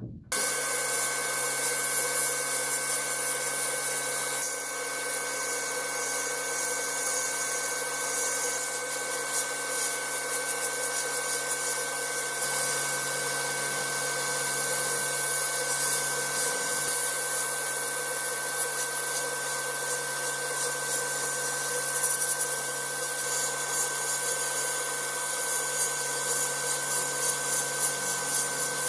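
Sandblasting: the blast gun in a sandblasting cabinet hisses steadily as abrasive grit scours the rust off a steel billhook blade, with a steady whine and low hum underneath. It starts abruptly just after the beginning.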